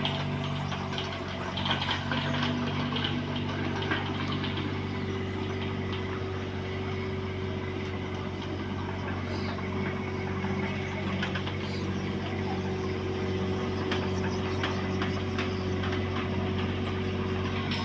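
Bobcat 322 mini excavator's diesel engine running steadily, with scattered light clicks and knocks from the machine at work.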